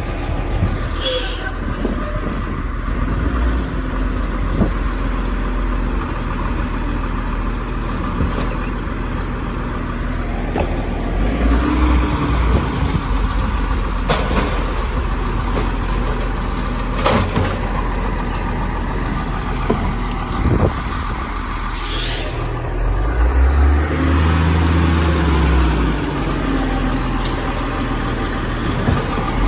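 Automated side-loader garbage truck working at the curb: its diesel engine runs and revs up twice to drive the hydraulic arm as it lifts and dumps carts. There are sharp knocks as a cart is shaken out into the hopper, and short hisses of air.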